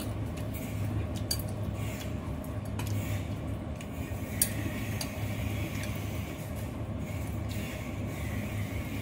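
A steady low hum with a few faint, sharp clicks and clinks scattered through it.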